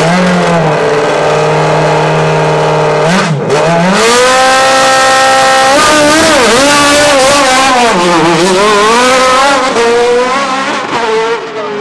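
Single-seater formula race car's engine running at a steady fast idle on the start line. About 3 s in the revs dip, then climb and are held high. From about 6 s the pitch swings down and up again and again as the car pulls away through its gears, fading near the end.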